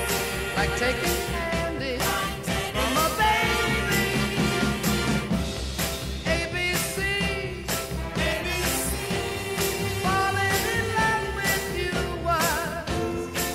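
Background music: a song with a singer's voice over a band and a steady beat.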